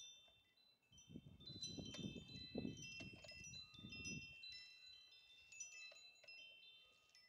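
Faint metallic chiming: scattered ringing tones at several different pitches that overlap and die away, with a low rumble about one to four seconds in.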